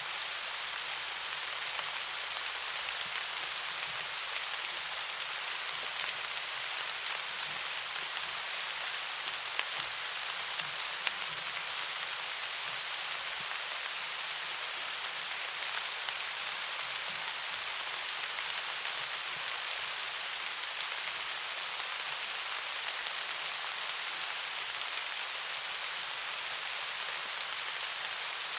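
Steady rain falling, an even hiss with a few brief sharper ticks scattered through it.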